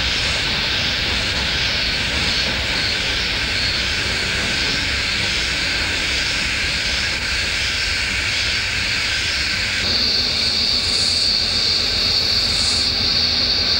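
Loud, shrill chorus of cicadas over the low rumble of a passing NSW 48 class diesel locomotive. About ten seconds in, the sound cuts to a higher, steadier cicada drone with a regular pulsing buzz above it.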